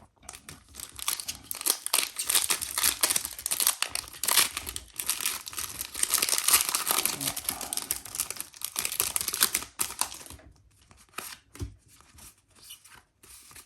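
Foil wrapper of a Pokémon TCG Lost Origin booster pack being torn open and crinkled, a dense crackling for about ten seconds. After that it gives way to a few faint rustles and ticks.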